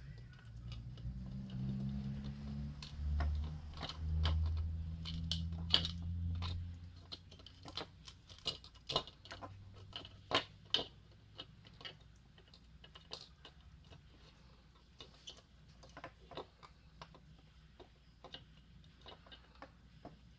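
Irregular small clicks and taps of fingers handling a small radio's circuit board, wires and plastic housing, with a low rumble during the first several seconds.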